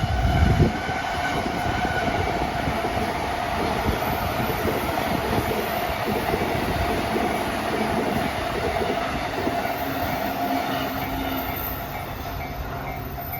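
Freight train of Koki container wagons rolling past at a level crossing: a steady rumble and irregular clacking of wheels over the rail joints, with a heavy low surge right at the start. The crossing's warning bell rings as a steady high tone over it, and the train noise eases near the end.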